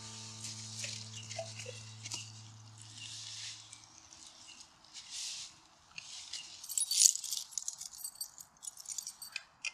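Light rustling, rattling and small sharp clinks, with a held music chord dying away over the first four seconds.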